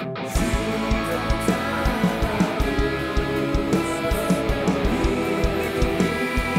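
Pop-rock band music: guitar chords over a steady drum beat, with no clear vocal line.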